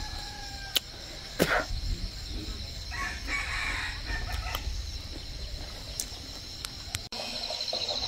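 A rooster crowing once, about three seconds in, over a steady high-pitched drone of insects, with a few sharp clicks and knocks scattered through.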